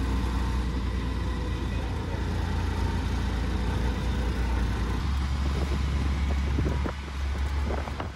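Steady low rumble of a motor vehicle driving along, heard from inside with road and wind noise over it. The rumble shifts about five seconds in and dips briefly near seven seconds, with a few light clicks near the end.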